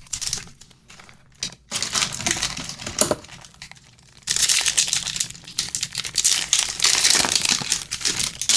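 A trading-card pack's wrapper crinkling and tearing as it is ripped open and handled: short bursts at first, then a long stretch of steady crinkling in the second half.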